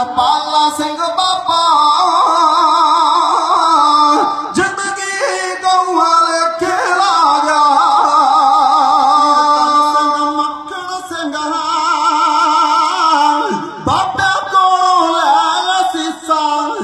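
Music with a man singing, his voice wavering in a strong vibrato over instrumental accompaniment.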